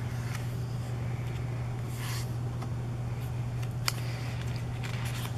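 A page of a thick-paged photobook being turned by hand: a soft paper swish about two seconds in and a light tap near four seconds, over a steady low hum.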